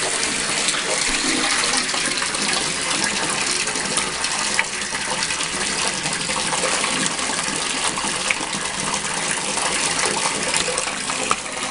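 Water running steadily from a tap into a tub or basin.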